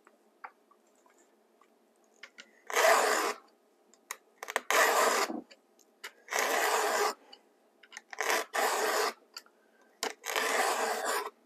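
Stihl 2-in-1 chainsaw sharpener's files rasping across a cutter of a chainsaw chain: five push strokes, each under a second, about one every one and a half to two seconds. The file is pushed one way only, so it is quiet between strokes.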